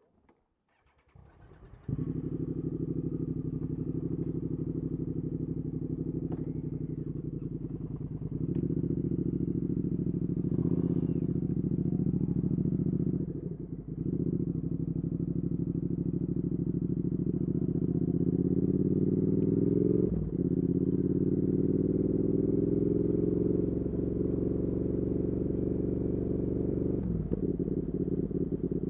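2019 Triumph Speed Twin 1200's parallel-twin engine through a Weslake Shorty Pro exhaust. It comes in about two seconds in and runs steadily, then pulls up in pitch under acceleration, with brief dips at gear changes midway, about two-thirds through, and near the end.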